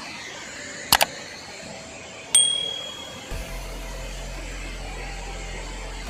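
Steady rush of falling and flowing water from a waterfall and its stream. A sharp double click comes about a second in, then a click with a short high ringing ping, and a low hum joins about halfway through.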